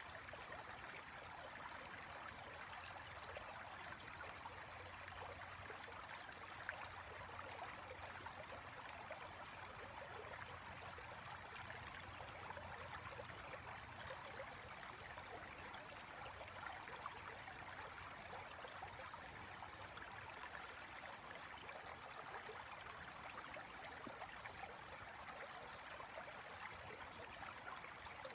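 The Tanew river rushing over low rocky cascades: a steady, even water noise.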